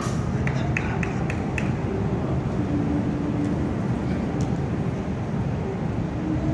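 Steady low rumble of road traffic, with a few short high squeaks in the first second and a half.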